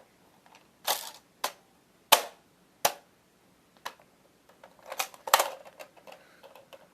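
Nerf blaster being handled and reloaded between shots: a string of sharp plastic clicks and clacks, irregularly spaced, the loudest about two seconds in, with a quick cluster of rattling clicks around five seconds in.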